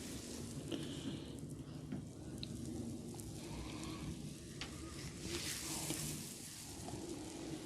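Hands working the hair and scalp in a head massage, a crackling rustle as the hair is rubbed and pulled, with a few small sharp clicks.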